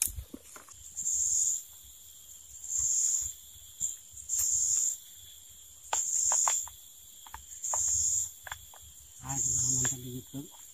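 An insect calling in short high-pitched pulses of about half a second, repeated evenly about every one and a half to two seconds. Faint clicks and taps come in between, and a man's voice is heard briefly near the end.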